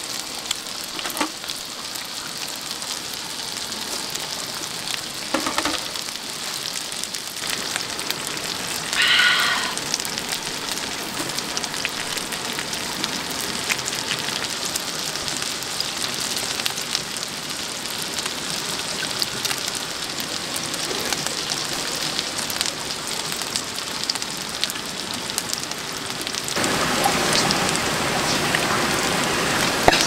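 Meat sizzling on a camping grill: a steady hiss with small scattered crackles, which gets louder about three seconds before the end. A short higher-pitched sound comes about nine seconds in.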